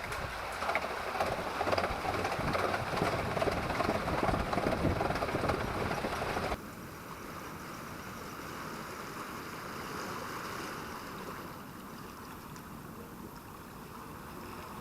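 Steady rushing ambient noise from the boat under way on the canal. It drops abruptly to a quieter hiss about six and a half seconds in.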